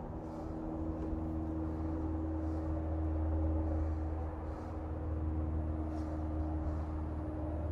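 A steady low mechanical hum, swelling a little about three seconds in.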